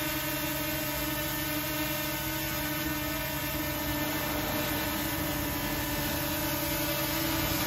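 Small foldable quadcopter drone hovering just above the ground, its four propellers giving a steady, unchanging whine.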